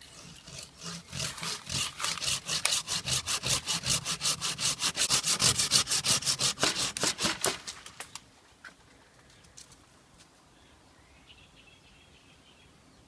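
Hand saw cutting through the trunk of a green sapling in fast, even back-and-forth strokes. The sawing stops about two-thirds of the way through, leaving only faint rustling and a few light ticks.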